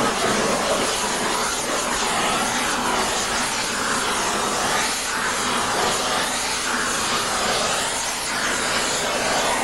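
Hand-held gas torch burning with a steady hiss as its flame heats an aluminum Shovelhead cylinder head to about 500 degrees, so the head expands to take a new valve seat.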